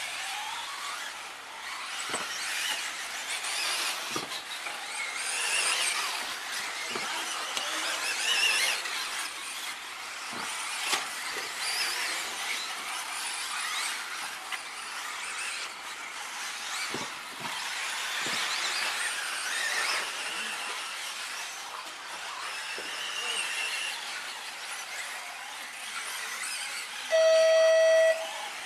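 2WD RC off-road buggies racing around a dirt track: the high whine of their motors and gears rises and falls as they speed up and slow down, with a few faint knocks. Near the end, a loud steady electronic beep sounds for about a second and a half.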